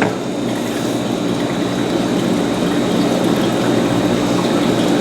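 Steady low mechanical hum with a faint high whine over it, slowly growing a little louder.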